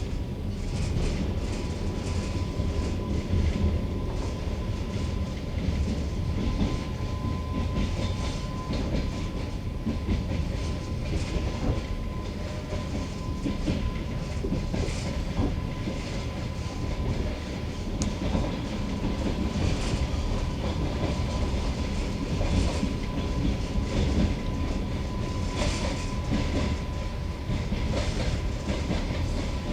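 A passenger train carriage's wheels clattering steadily over the rails, with irregular clicks over a continuous low rumble and a thin steady whine underneath. Heard from aboard the carriage.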